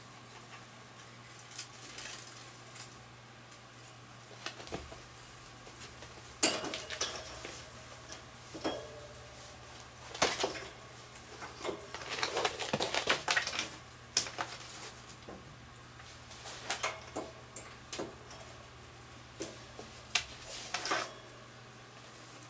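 Irregular metallic clinks and rattles of a wire hamster cage as a kitten paws at its bars and base, coming in bursts, the longest and loudest about ten to fourteen seconds in.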